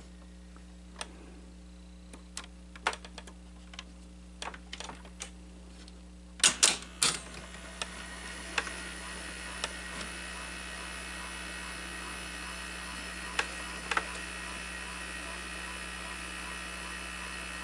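Small clicks from the mechanism of a Sony SL-5000 Betamax VCR being handled, then a few loud mechanical clunks about six seconds in. After these the machine's motors and transport run with a steady whir, with an occasional click.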